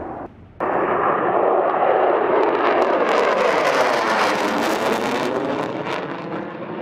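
Jet fighter flying past overhead. The loud jet noise swells and slowly fades, with a sweeping, swirling change in tone as it passes. A short drop-out comes near the start.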